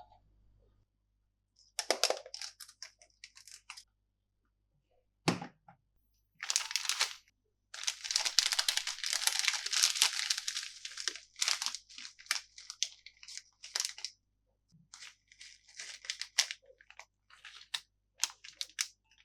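Candy and toy packaging being torn open and crinkled, in irregular crackly bursts with short pauses, and one sharp knock about five seconds in.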